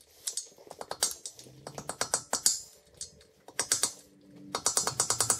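Hand ratchet clicking in short, rapid bursts as the bolts on the pushrod shroud tube lock plate of a Lycoming O-320 cylinder are loosened, with brief pauses between strokes.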